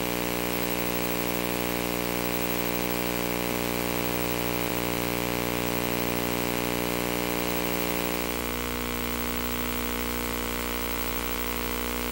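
A steady mechanical hum made of several fixed tones over a low hiss, changing a little about eight seconds in.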